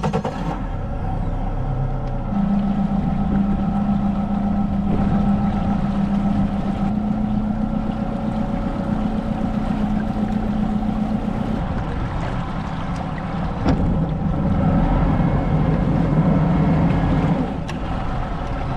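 Fishing boat's motor running steadily with a constant hum as the boat moves to find the fish again. It gets louder about three quarters of the way in, then eases back off near the end.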